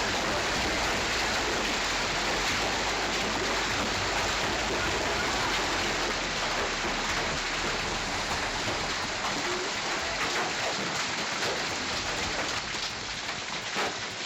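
Hailstorm: hail and rain pelting down steadily, a dense hiss of countless small impacts that eases slightly near the end.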